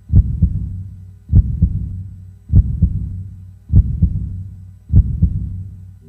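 Deep, heartbeat-like double thumps, a strong beat followed by a softer one, repeating about every 1.2 seconds, five times, with a low hum dying away between them. It is a heartbeat sound effect in the video's intro soundtrack.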